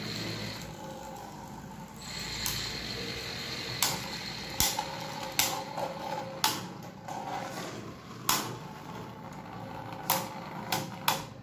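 Two Beyblade Burst spinning tops, Takara Tomy's Roktavor and Valtryek, whirring as they spin on a smooth tabletop, with sharp plastic clacks each time they collide, the hits coming faster near the end.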